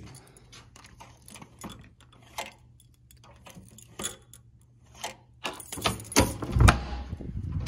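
Keys jangling on a lanyard and a plastic keycard clicking against an electronic hotel-room door lock, a scatter of small rattles and taps. A louder clunk comes near the end as the door is unlatched and opened.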